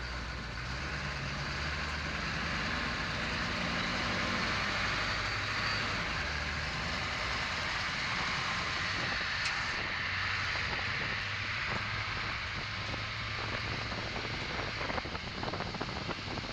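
Duramax V8 turbo-diesel running under way in a 1967 Chevy C10, with tyre and road noise over a washboard road. The engine pitch rises a little a few seconds in, and there are scattered light ticks near the end.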